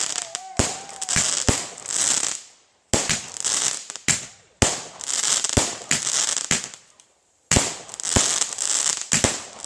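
Consumer fireworks going off: a string of sharp bangs, each followed by crackling hiss, in three clusters with short breaks near 3 and 7 seconds in.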